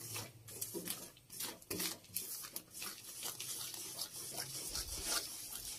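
A spatula stirring and scraping peanuts through thick jaggery syrup in a metal kadai, in short, irregular strokes against the pan. The peanuts are cooking in the melted jaggery for chikki, not yet ready to set.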